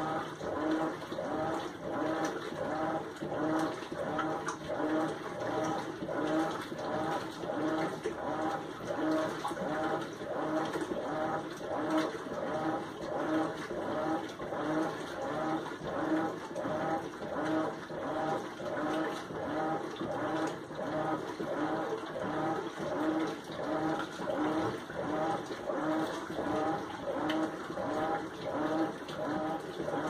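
Whirlpool Xpert System Smart Load top-load washing machine in its wash cycle, the agitator working the clothes back and forth through the water: a pulsing hum with water sloshing, repeating about once a second.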